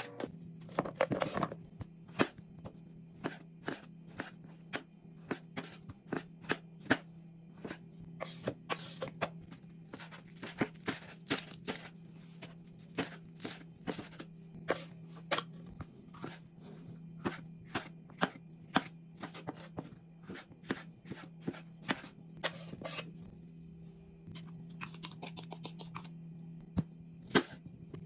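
Kitchen knife chopping cucumber and lettuce on a wooden cutting board: irregular sharp knocks of the blade striking the board, over a steady low hum.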